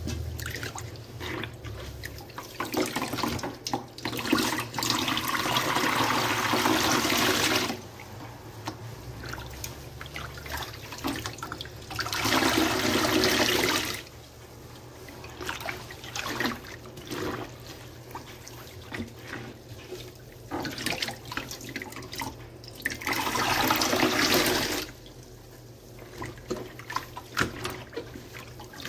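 Sponge soaked in dish soap suds being squeezed by hand, squelching and crackling wetly. Three times, water pours out in a steady stream for two to three seconds.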